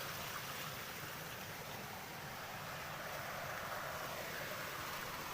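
Steady rush of flowing water in a small ditch, an even hiss with no breaks.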